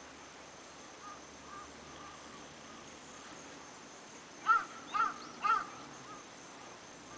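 A crow cawing three times in quick succession, about half a second apart, over a steady high insect drone.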